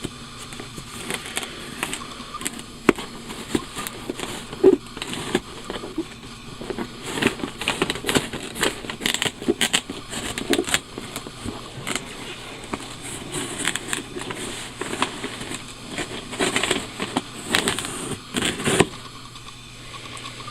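A cardboard shipping box being opened and handled by hand: irregular crackling, scraping and rustling of cardboard and tape, with sharp clicks and bumps, dying down near the end.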